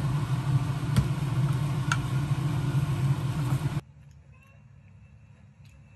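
A loud, steady low mechanical rumble with a few faint clicks, which cuts off abruptly about four seconds in, leaving quiet room tone.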